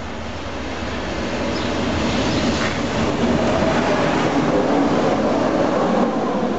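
Train passing on the line, its noise growing louder over the first two or three seconds as it comes up, then holding loud and steady.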